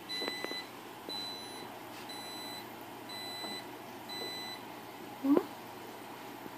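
Digital oven control panel beeping as its touch keys are pressed: about six short, high beeps in the first four and a half seconds.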